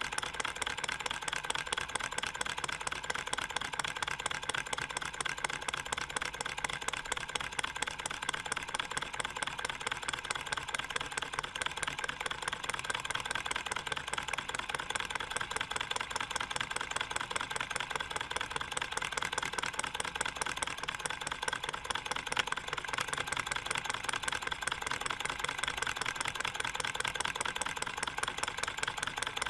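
All-metal model Stirling engine (aluminium alloy and stainless steel) running at a steady speed, its pistons and linkage giving a fast, even metallic ticking.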